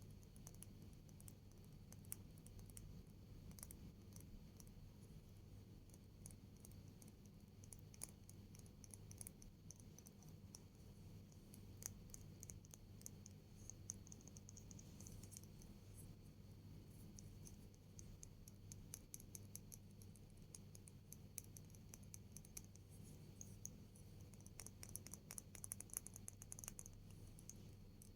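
Faint, quick ASMR tapping and clicking in close-up, coming in rapid flurries, densest around the middle and near the end.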